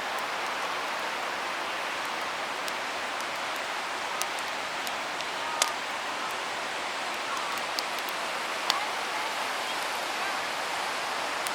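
Campfire crackling: an even hiss with scattered sharp pops, two louder ones about halfway and about three quarters through.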